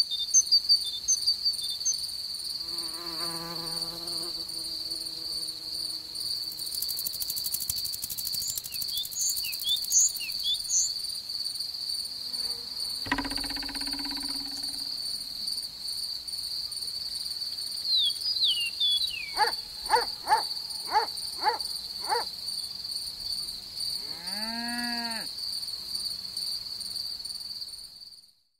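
Steady, high-pitched cricket chirring throughout. Scattered short bird chirps sit over it, along with a few brief buzzing and calling sounds, including a quick run of five notes about two-thirds of the way through.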